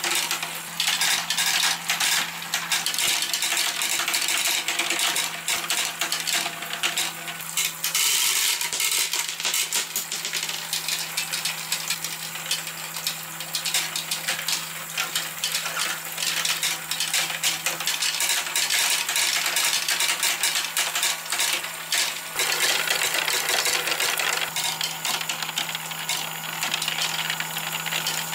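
Small balls clattering and clicking against the plastic chutes and trays of a toy water marble run, over water running and splashing, in a continuous busy patter. A steady low hum runs underneath.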